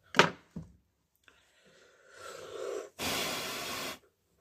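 A sharp click, then a rustle, then a hard puff of breath blown for about a second into a Hilti hammer drill's opened housing to clear the dust inside.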